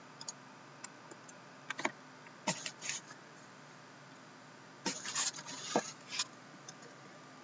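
Handling noise: short clicks and scrapes from a computer mouse and a sealed cardboard case being slid and turned around, in two clusters about two and five seconds in.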